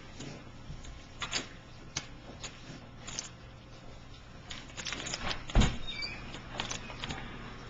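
Scattered clicks and knocks of kitchen handling while burger meat is mixed and seasoned in a bowl, with one louder thump about five and a half seconds in.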